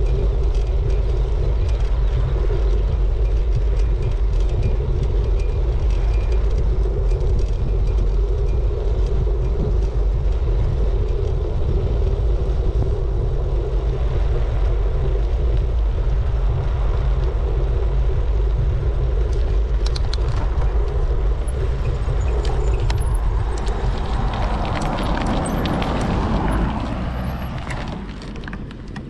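Wind buffeting the microphone of a bike-mounted camera while cycling, a steady low rumble. Near the end a vehicle passes with a rising and falling swell, and then the rumble dies down.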